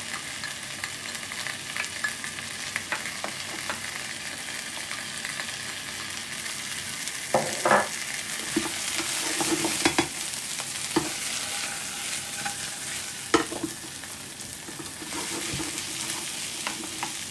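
Chicken pieces with browned onions and a garlic-ginger paste sizzling in hot oil in a pan. They are stirred with a utensil that knocks and scrapes against the pan several times.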